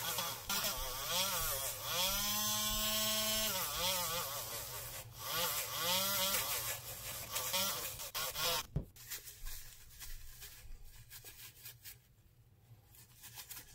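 Handheld rotary tool spinning a felt polishing wheel against a small brass part; its motor whine dips and recovers in pitch again and again as the wheel is pressed on and eased off. About nine seconds in there is a click and the whine stops, leaving faint rubbing of a paper towel on the metal.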